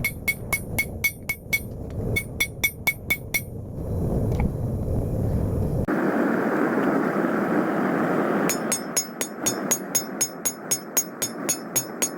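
Hand hammer striking hot 5160 leaf-spring steel on an anvil to draw out a knife blade, a rapid run of ringing blows at about four to five a second. The blows pause for several seconds, with a steady rushing noise setting in partway through, then resume at the same pace near the end.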